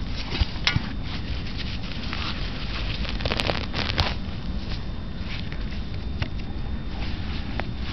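Rustling and crackling in dry grass and dug soil, with a few sharp clicks about half a second in and again near three and a half and four seconds in, over a steady low rumble.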